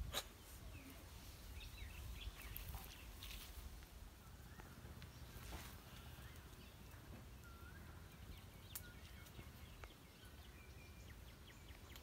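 Quiet open-air ambience: a low steady rumble with a few faint, short bird chirps scattered through it.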